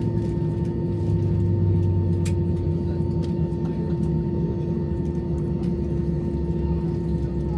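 Cabin noise inside an Airbus A321 as it taxis: a steady hum with a low rumble under it, and a thin higher tone that comes in right at the start and holds.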